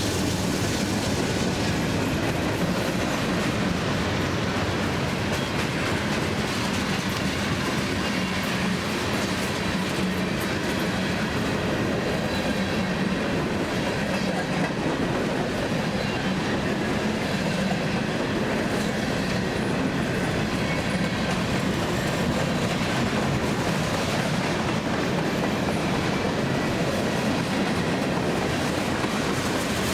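CSX freight train's cars rolling steadily past, steel wheels running on the rails.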